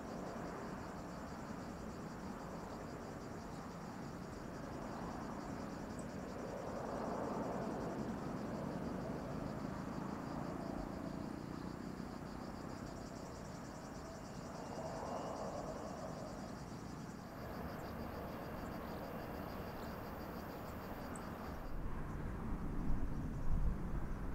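Insects chirring steadily, with a higher buzz joining for a few seconds in the second half, over the distant rumble of a KLM Cityhopper Embraer 175's jet engines as it moves on the runway; the rumble swells twice. A few low bumps sound near the end.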